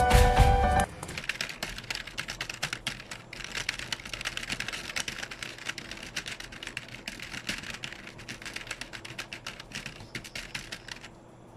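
Background music cuts off under a second in, giving way to a typing sound effect: rapid key clicks that run on and stop about a second before the end.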